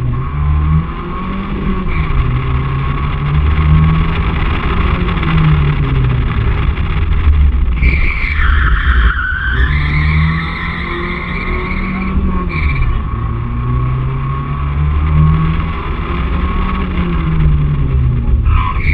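BMW 318i E30's four-cylinder engine driven hard through a slalom, its revs rising and falling every couple of seconds, heard from outside the car. A tyre squeal about eight seconds in, with a falling pitch, and a short one a few seconds later.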